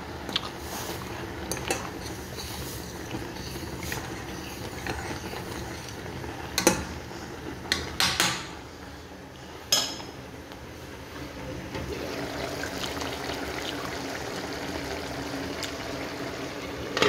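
Pasta water at a rolling boil in a stainless steel pot while a metal fork stirs the fettuccine, clinking sharply against the pot a few times about halfway through.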